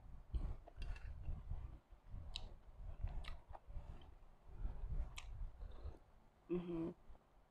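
A person eating soup with a metal spoon: chewing and sipping, with a few light clicks, and a brief hummed "mm" near the end.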